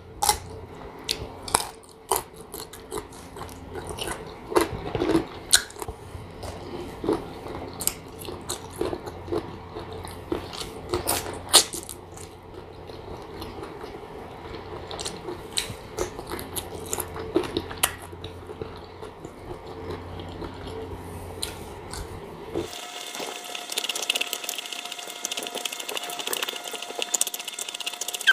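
Close-up crunching and chewing of crisp sour green mango slices, with many short sharp crunches. About 23 s in, the low background hum drops out and a thin steady hiss with a faint tone replaces it.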